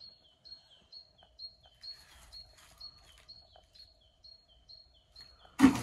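A small songbird singing a repeated two-note phrase, a higher note then a lower one, about two phrases a second. A single loud thump near the end.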